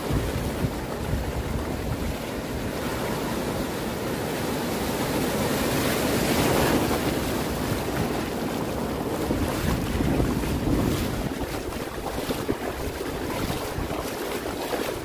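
Surf washing in over shallow beach water, swelling louder twice, with wind buffeting the microphone. Near the end, splashing steps through the shallow water.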